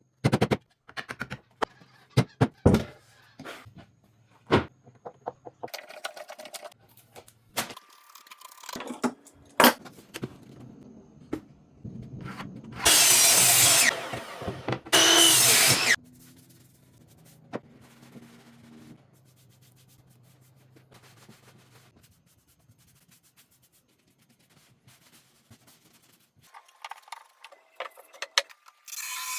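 Workshop tool work on a wooden sign: scattered knocks and clicks over a low steady hum, with two loud noisy bursts of about a second each near the middle.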